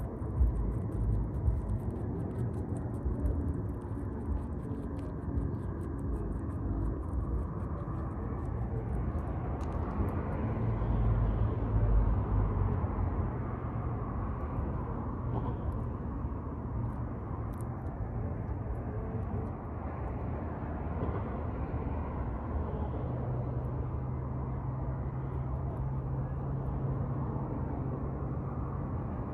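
Steady low rumble of road traffic, with a low engine hum joining about two-thirds of the way through.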